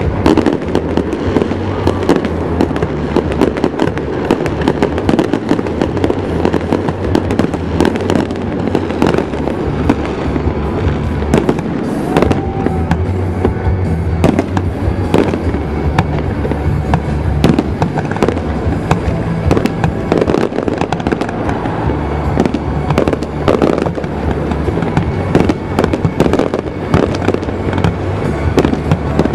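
Aerial fireworks shells bursting in quick succession: a dense, continuous run of bangs and crackles.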